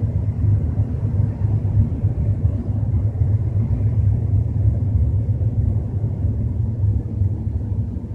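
BMW 320i making a steady low rumble while driving, the strange noise that shows up at about 30 to 40 km/h and whose cause is not known.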